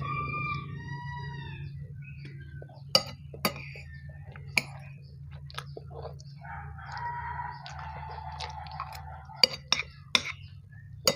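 Utensils clinking sharply against a dish several times while food is eaten, over a steady low hum. A long pitched animal call sounds in the background near the start and again for a couple of seconds midway, falling in pitch at its end.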